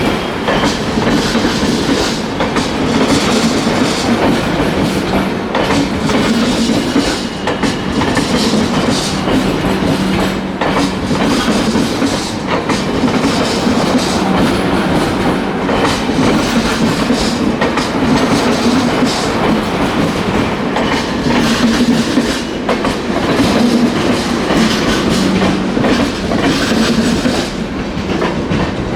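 Coaches of an Indian Railways express train passing at high speed, steel wheels clattering continuously over rail joints in quick, uneven clicks.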